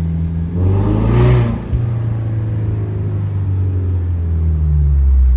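Motor vehicle engines running steadily, with a louder vehicle passing close by about a second in.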